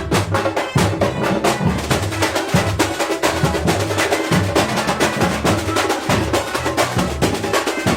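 Percussion ensemble playing a fast, dense rhythm of sharp, clicking strikes and drums over a repeating bass line.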